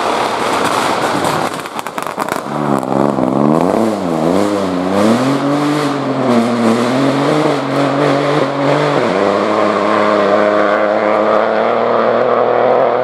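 Peugeot 208 Rally4 rally car's turbocharged 1.2-litre three-cylinder engine pulling away: a burst of exhaust pops and crackles in the first two seconds, then the revs rise and fall a few times before climbing steadily. A gear change drops the revs about nine seconds in, and the engine note then holds steady as the car moves off.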